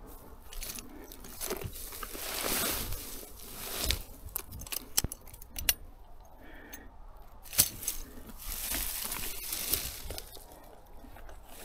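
Irregular crunching and rustling with scattered knocks and clicks; the loudest is a single sharp click about seven and a half seconds in.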